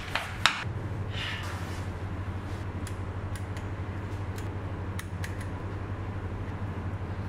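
Light clicks of a Profender coilover's damping adjuster knob being turned by hand, spaced roughly half a second apart, after a sharp knock about half a second in. A steady low hum runs underneath.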